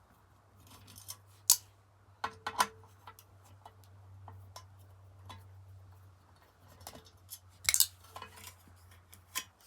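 Hand screwdriver backing screws out of a Kirby Sentria 2 vacuum's headlight hood, with scattered sharp clicks and small clinks of screws and trim pieces being handled; the loudest click comes about a second and a half in, and a cluster comes near the end.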